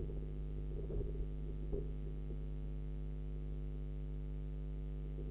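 Steady electrical hum made of several even, unchanging tones, with a few faint short sounds in the first two seconds.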